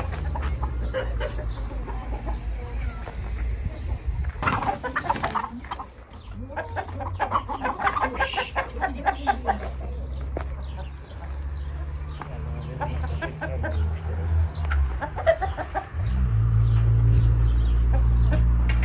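A flock of domestic chickens clucking in short bursts, over a steady low rumble that grows louder near the end.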